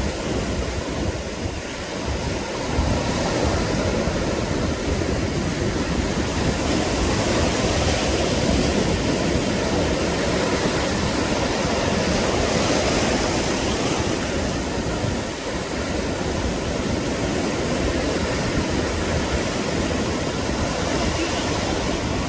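Sea surf breaking and washing up the beach: a steady rushing wash that swells and eases a few times.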